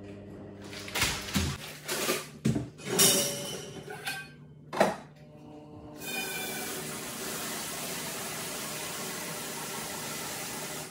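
A few knocks and rustles, then about six seconds in a kitchen tap starts running into a metal pot at the sink: a steady rush of water that stops suddenly at the end.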